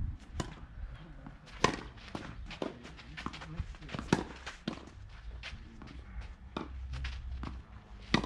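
Tennis rally on a clay court: sharp pops of rackets striking the ball, the loudest a couple of seconds apart, with lighter knocks of the ball bouncing and players' footsteps scuffing the clay.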